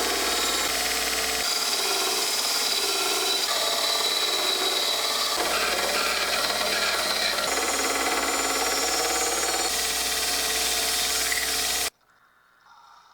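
Power tool running steadily under load against a workpiece, loud, in several joined clips. It cuts off abruptly near the end.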